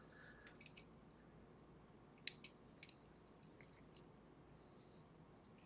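Faint, scattered small clicks and taps of metal lock parts being handled while a pin tumbler lock is taken apart, the clearest a couple just over two seconds in, over near silence.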